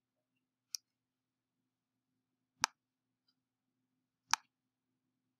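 Three short computer mouse clicks: a faint one near the start, then two sharper ones about a second and a half apart.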